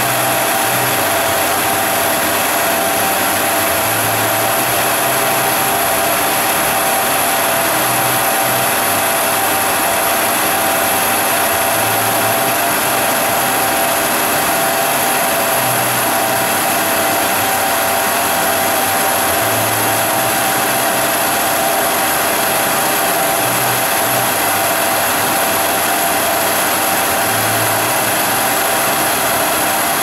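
Ruwac WS2220 portable industrial vacuum running steadily with its hose at a lathe's cutting tool, drawing away nylon chips, together with the metal lathe spinning the nylon workpiece. A steady rushing noise with a steady whine through it, unchanging in level.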